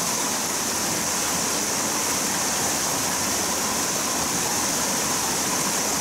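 Steady rush of a small waterfall pouring into a rocky mountain stream.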